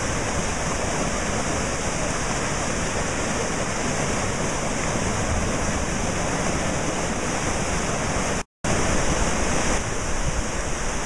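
Floodwater rushing in a swollen creek over a submerged bridge, a steady, loud wash of water. It drops out to silence for a split second about eight and a half seconds in.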